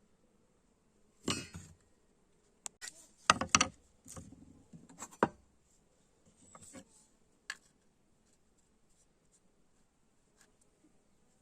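A scattered run of short knocks and clinks of hard objects being handled, over about six seconds.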